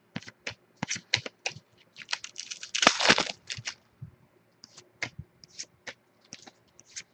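Sports trading cards being handled: a run of quick clicks and snaps as cards are flicked and set down, with one longer, louder rustling scrape about two and a half seconds in.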